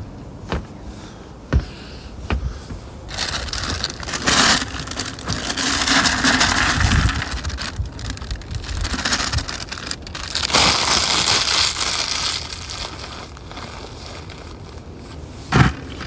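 Dry Cinnamon Toast Crunch cereal squares poured from the crinkling plastic bag liner into an empty plastic bucket, rattling in two long pours with a short pause between. A few light knocks come before the first pour.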